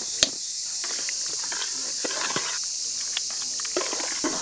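A hammer cracks an almond shell on a flat stone with one sharp knock, followed by scattered lighter knocks and clicks, over a steady high hiss.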